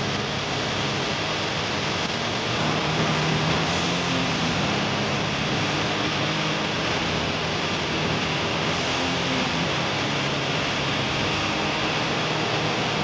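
TurboTorch Extreme air-acetylene brazing torch burning with a steady hiss, heating a copper refrigerant line joint on a newly set compressor to braze it in.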